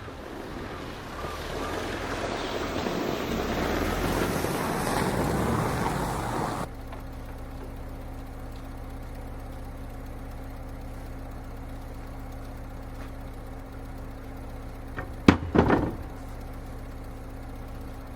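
Lada Niva engine running hard with a rising rush of noise, then switching abruptly to a steady, lower hum. A few sharp knocks are heard about fifteen seconds in.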